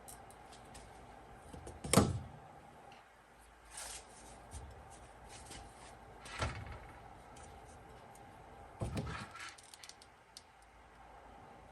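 A few scattered knocks, clicks and rubbing sounds of tools and parts being handled, the loudest a sharp knock about two seconds in, with others near four, six and nine seconds, over a faint steady hum.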